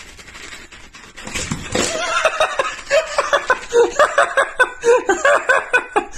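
A person laughing hard, a quick run of ha-ha pulses that starts about two seconds in and keeps going.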